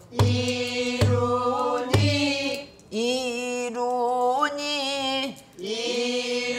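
A woman singing pansori in long held notes with a wavering, bending voice, and a sharp upward bend about four and a half seconds in. A buk barrel drum is struck three times, about once a second, in the first two seconds.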